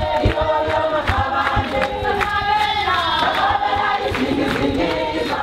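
A crowd of marchers singing together in chorus, many voices holding overlapping sung lines, with irregular low thumps underneath.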